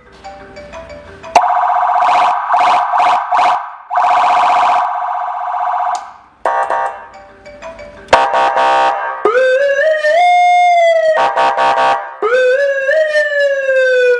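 Electronic siren switching between patterns: stretches of a fast-pulsing steady tone, and a wail that rises and falls in pitch about two-thirds through, then rises briefly and falls slowly near the end.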